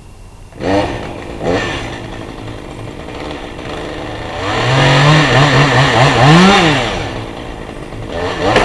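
Gas chainsaw revved in two short blips, then run hard for about two seconds, its pitch rising and then dropping.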